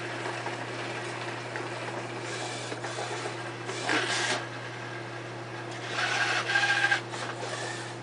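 Electric harmonic-drive joint motors in a humanoid robot's arm, whirring as the arm moves through its upper joints. The motors whine louder about four seconds in and again for about a second near the end, over a steady low hum.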